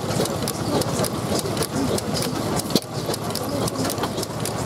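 1906 Fairbanks Morse 2 hp engine with low-tension friction-drive ignition running steadily, with rapid mechanical clicking from its exposed ignitor and valve linkage.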